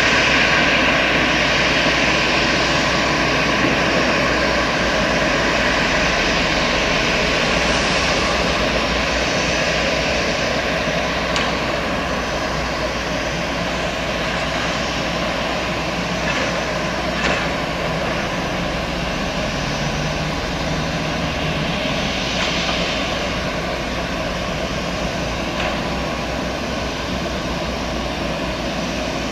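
Airbus A320's twin jet engines running steadily, a continuous whine and rush that slowly gets quieter.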